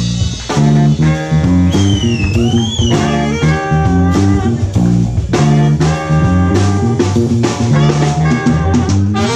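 Live funk-jazz band with a horn section playing a busy bass line over drum kit, with one high note bent up and down about two seconds in.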